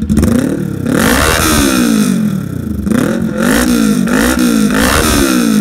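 Kawasaki Ninja 400 parallel-twin engine revved through an aftermarket full exhaust system, its pitch climbing and falling with each throttle blip. A slower rev and fall comes over the first two seconds, then quicker blips about once a second.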